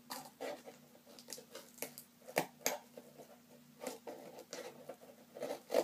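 Scissors cutting and working at a small mail package: an irregular run of sharp clicks and snaps, with crinkling of the packaging between them.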